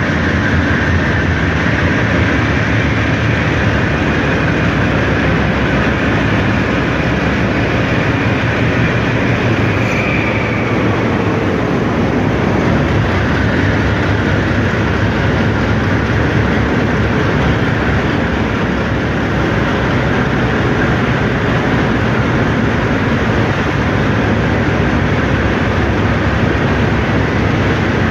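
Train cars rolling past on the rails, a loud steady rumble of wheels on track, with a faint wheel squeal near the start and a brief higher squeal about ten seconds in.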